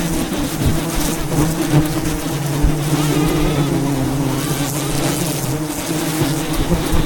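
A swarm of wild honeybees buzzing: a dense, steady hum that wavers a little in pitch.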